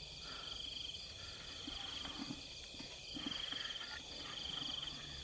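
Night insects trilling steadily, several high-pitched trills overlapping with one fast pulsing chirp above them. A few faint knocks come from fish being handled in a bucket.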